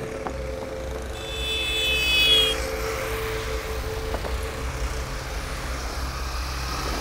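Auto-rickshaw engine running steadily as it drives along the road, over light road traffic. About a second in, a vehicle horn sounds for about a second and a half, dropping slightly in pitch as it ends; it is the loudest moment.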